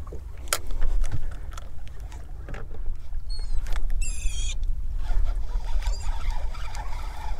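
Wind rumbling on the microphone over choppy water, with a few sharp clicks of rod and reel handling. A bird gives short, high, wavering calls about three seconds in and again about a second later.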